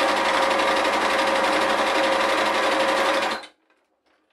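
Janome electric sewing machine stitching steadily at speed through patchwork fabric, then stopping suddenly about three and a half seconds in.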